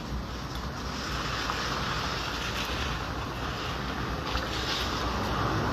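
Steady outdoor hiss with a low rumble, like wind blowing across the microphone; no distinct birdsong stands out.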